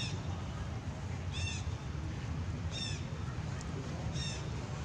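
An animal's short, high call that rises and falls in pitch, repeated evenly about every one and a half seconds, four times.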